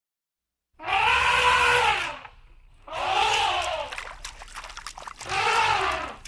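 A farm animal bleating three times, starting about a second in, each call about a second long and rising then falling in pitch.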